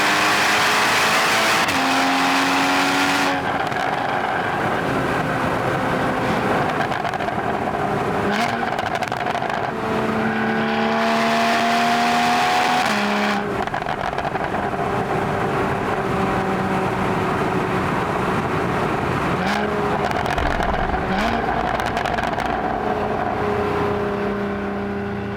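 Porsche 981 Boxster GTS's flat-six engine and exhaust under hard acceleration, its pitch climbing and dropping back several times as it shifts through the gears. The engine eases off near the end.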